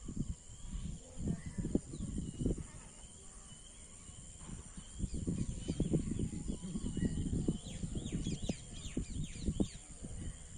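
Birds chirping and calling in the open, with a flurry of quick falling chirps in the last few seconds, over a steady high-pitched hum and irregular low rumbling bumps on the microphone.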